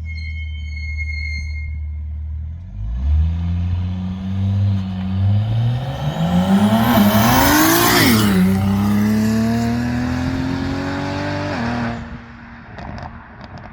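BMW E92's N54 twin-turbo inline-six idling, then pulling away and accelerating hard past, its pitch climbing to a peak and dropping about eight seconds in. It then holds a steadier, slowly rising note before cutting away sharply near the end.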